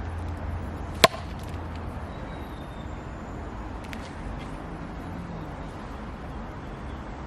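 A single sharp knock about a second in, over a steady low hum and hiss, with a couple of faint ticks later on.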